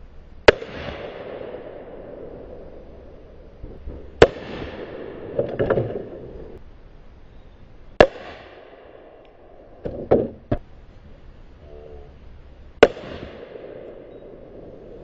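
Gunshots from a carbine and a 9mm pistol fired at a homemade armor plate: four loud sharp cracks roughly four seconds apart, each trailing off in an echo. Quieter bangs fall between them, one around the middle and a quick pair about two-thirds of the way through.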